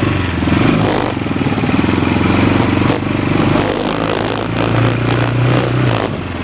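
Roketa ATV engine running while being ridden, with a tapping rattle that keeps getting louder as it runs, which the owner takes for something wrong inside the engine. The engine note rises for a second or so after the middle, then drops back.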